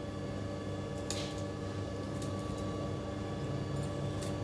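Steady electrical hum, with a few faint, short clicks from a knife cutting green chillies into a steel wok: one about a second in, one around two seconds in, and one near the end.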